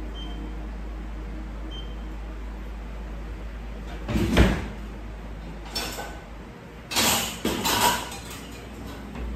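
Kitchen clatter: a heavy knock about four seconds in, a lighter knock near six seconds, then a cluster of clattering bumps around seven to eight seconds, over a steady low hum.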